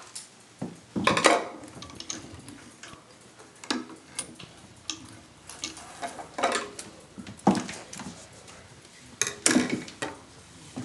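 Irregular small clicks and metallic knocks from handling the Singer 192K Spartan sewing machine, with a few louder clatters about a second in and near the end; the machine is not running.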